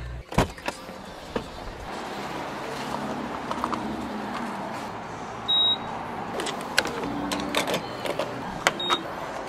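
Car being refuelled at a gasoline pump: clicks and knocks as the fuel cap is opened and the nozzle goes into the filler neck, over a steady rushing background. A short high beep comes about five and a half seconds in, and a shorter one near the end.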